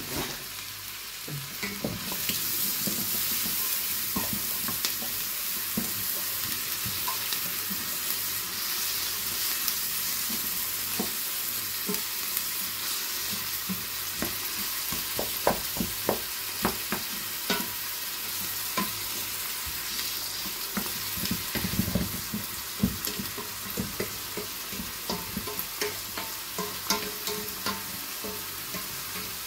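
Chopped onions sizzling in melted margarine and sugar in a stainless steel pot, stirred with a wooden spatula that knocks and scrapes against the pot. The sizzle grows louder about two seconds in. The onions are being cooked down to caramelise.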